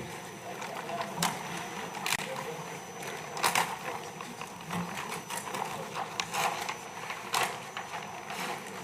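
Irregular sharp clicks and knocks, about one a second, over faint steady background noise with a thin high tone.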